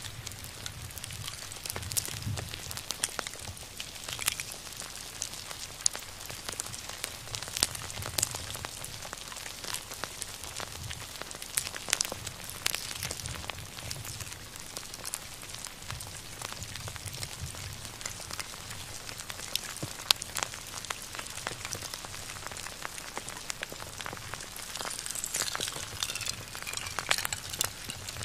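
Fire crackling, with many scattered sharp pops over a low rumble, and a few faint falling whistles near the end.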